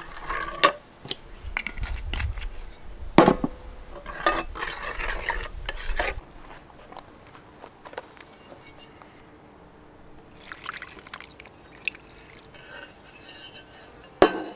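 A metal spoon stirring and clinking against a small steel pot of liquid, with several sharp clinks in the first six seconds. After that it goes quieter, with a brief soft patch of noise and two sharp knocks near the end.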